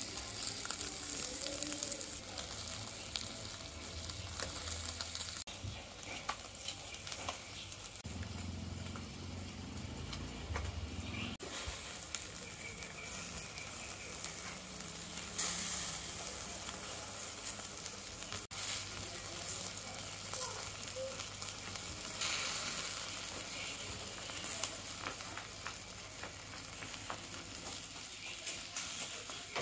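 Tilapia and chicken wings sizzling and crackling on a wire rack over a charcoal grill, with a steady hiss full of small pops, changing abruptly a few times as the clips cut.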